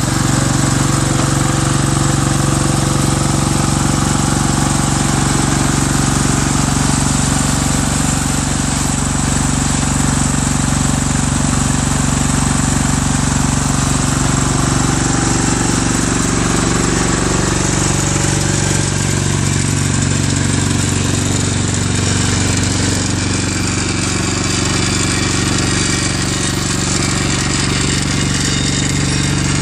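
Ammann AFW150 mini asphalt paver running steadily as it paves, a constant engine drone with a slight dip in pitch about halfway through.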